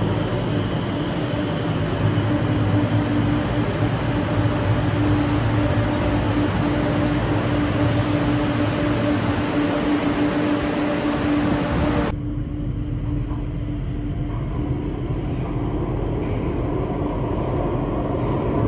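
Rotterdam metro train arriving at an underground station platform: a steady rumble with a constant hum. About twelve seconds in the sound changes abruptly to the lower, duller rumble of riding inside the metro carriage.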